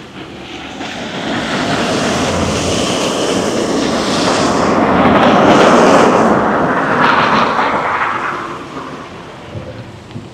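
A vehicle passing close by: a loud rush of noise that swells over the first couple of seconds, peaks about midway and fades away near the end.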